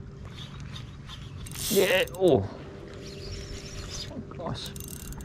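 Spinning reel clicking and whirring on light shore-jigging tackle while a hooked fish pulls against the bent rod. A loud exclamation comes about two seconds in.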